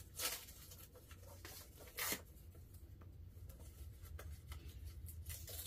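Talon Grips grip-tape package being opened by hand: faint rustling and rubbing, with two short rips, one just after the start and one about two seconds in.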